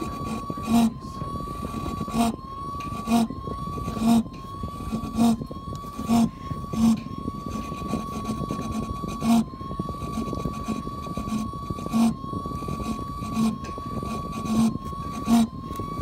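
A Samsung household appliance running: a steady high whine, broken by a short knock roughly once a second at uneven spacing, with the whine dipping in pitch at each knock.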